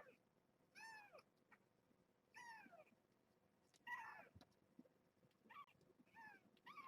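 Three-week-old kittens mewing: about six short, high-pitched cries, each falling in pitch, spaced roughly a second apart.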